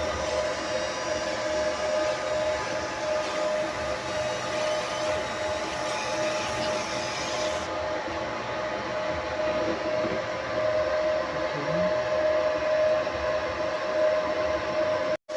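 An engraving machine, likely a laser engraver, running steadily: a constant whine over an even hiss. It cuts out for an instant near the end.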